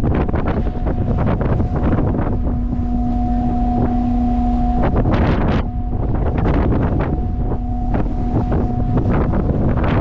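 Strong wind buffeting the microphone, with a steady low pitched tone over it, like a whistle, that sounds twice for a few seconds each time.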